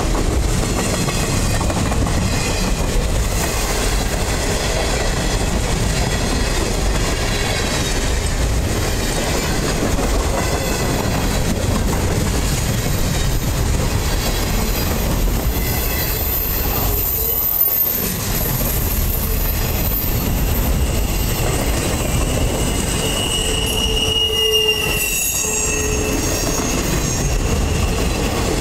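Loaded freight cars (flatcars carrying military containers and vehicles) rolling past on the rails: a steady rumble of wheels on track, with high-pitched wheel squeal coming and going, loudest about three-quarters of the way through.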